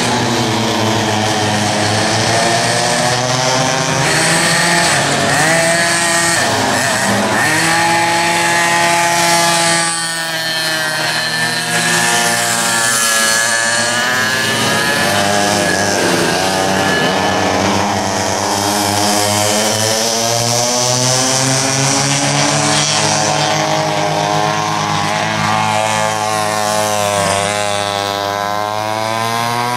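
Several vintage 6.1-cubic-inch (100 cc) two-stroke kart engines racing at once, each one's pitch rising as it accelerates and falling as it backs off, the engine notes overlapping and criss-crossing throughout.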